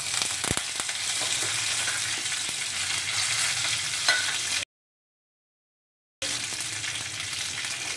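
Curry leaves and mustard seeds sizzling and crackling in hot oil, stirred with a wooden spatula, with a few sharp pops in the first half second as the leaves hit the oil. The sizzle cuts out completely for about a second and a half after the middle, then comes back.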